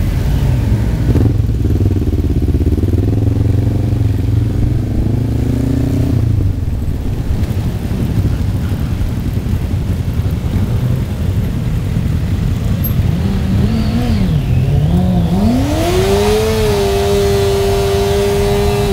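Several motorcycles riding slowly in a group, a steady low engine rumble with a wavering engine note early on. Near the end a sports motorcycle just ahead revs up and holds its engine at high revs for a couple of seconds, the sound of a rear-tyre burnout, before the revs drop.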